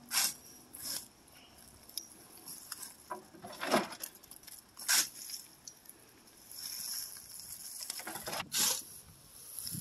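A fork digging into a pile of wood-chip mulch and tossing forkfuls into a wheelbarrow: irregular crunches and rustles of chips, with half a dozen louder scoops.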